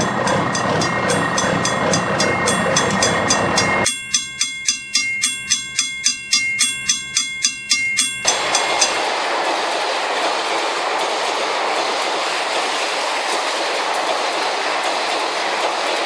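Cartoon train sound effects. A train runs with a rapid clickety-clack for about four seconds. Then a level-crossing bell rings alone in even strokes, about three a second, for about four seconds. After that comes a steady hiss of a train rolling past.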